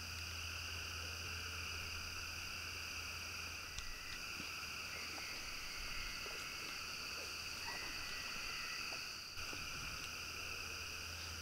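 Night chorus of frogs and insects: a faint, steady trilling in several layers, over a low steady hum.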